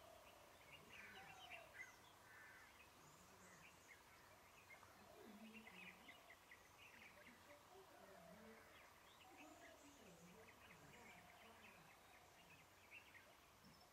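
Faint bird calls and chirps, many short scattered calls, over quiet outdoor ambience.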